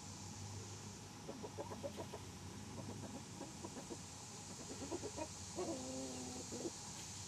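A bird calling: a run of short calls, then one longer drawn-out call about a second before the end, over a steady low hum.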